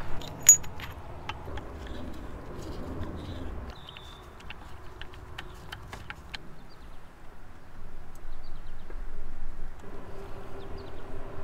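Light metallic clicks and taps of an Allen key and small fittings being worked on an aftermarket blow-off valve, with one sharp click about half a second in and scattered ticks over the next few seconds.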